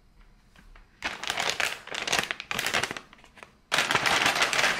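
Plastic delivery bag crinkling as it is handled and opened: a quiet first second, then about two seconds of crinkling, a short pause, and another burst of crinkling near the end.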